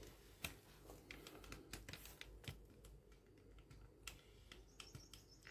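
Faint, irregular clicks and light taps of plastic juicer parts being handled, against near silence.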